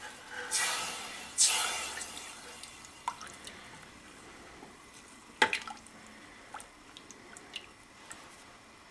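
Silicone spatula stirring cornstarch slurry into a thin sauce in a stainless steel saucepan. There are two brief swishes of the liquid near the start, then scattered light taps of the spatula against the pan, the loudest a sharp click a little past halfway.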